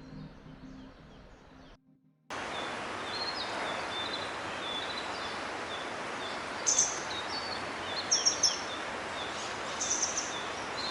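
Background music fades out, and after a moment of silence about two seconds in, wild birds call over a steady outdoor rushing noise. One bird repeats a short high note about twice a second, and louder chirps come in bursts in the second half.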